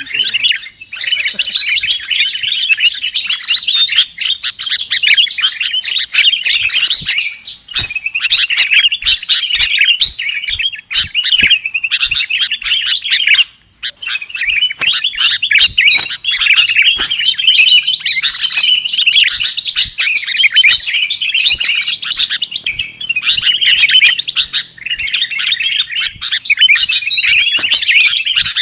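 Bird-lure recording of sooty-headed bulbul (kutilang) calls: dense, continuous chirping and chattering with many sharp ticks, breaking off briefly about halfway through.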